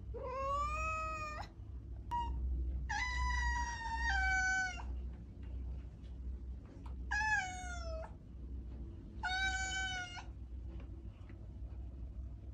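A cat meowing four times, drawn-out meows with one to two seconds between them. The first rises in pitch, the second is the longest and steps down in pitch partway through, and the third falls. A steady low hum runs underneath.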